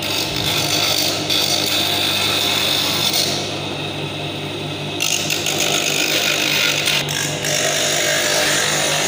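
Dental lathe running with a grinding stone on its chuck, cutting away excess acrylic from a pink denture base. A steady motor hum sits under a gritty grinding noise that grows and fades as the acrylic is pressed to the stone.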